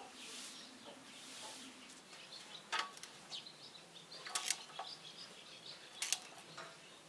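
A handful of faint, sharp metallic clicks from a wrench working on the injector hold-down of a shut-off Perkins diesel engine. The engine is being loosened off to remove an injector that is blowing compression past its seat.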